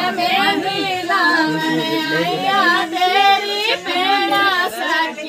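A group of voices, women's and children's among them, singing together without instruments in long held, wavering notes: traditional Gojri wedding singing.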